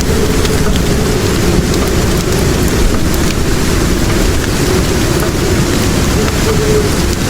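Steady heavy rain over a low continuous rumble, with faint crackles of a fire.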